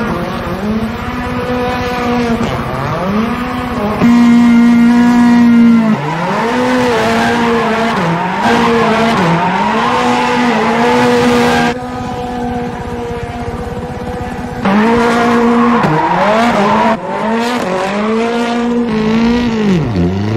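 A Ford Fiesta rallycross car's turbocharged four-cylinder engine is revved hard, its pitch rising and falling over and over as the car drifts in circles, with tyre squeal. The sound jumps abruptly several times, where the footage is cut.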